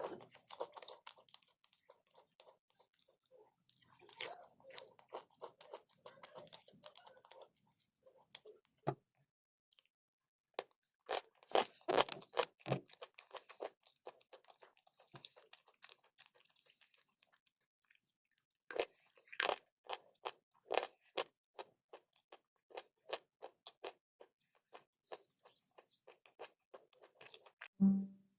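A person biting and chewing crunchy chalk and clay close to the microphone. The sharp crunches come in bursts, with a few short pauses between them.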